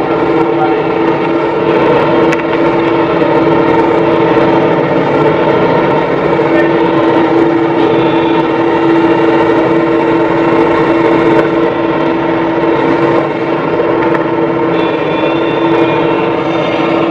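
JCB backhoe loader straining under heavy load while stuck in deep mud: its diesel engine runs hard with a steady high-pitched whine that barely changes.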